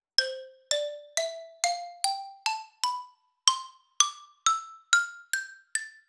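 A slow ascending run of single struck mallet-percussion notes, xylophone-like, each ringing briefly and dying away, about two notes a second. The pitch climbs steadily by nearly two octaves, with a short pause about halfway through.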